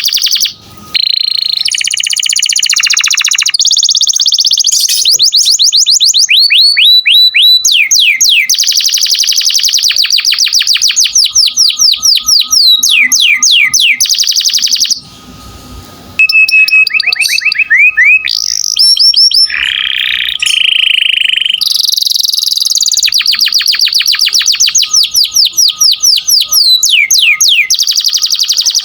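Domestic canary singing loudly in long, fast trills of repeated downward-sweeping notes, mixed with buzzy rolls. The song breaks off briefly about a second in and again about halfway.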